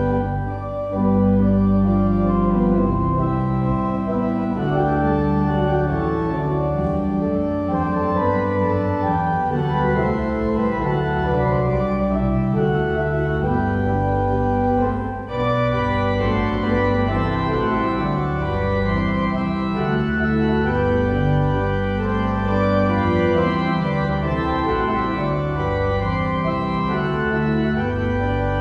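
Organ music playing slow, sustained chords, with a brief dip about halfway through.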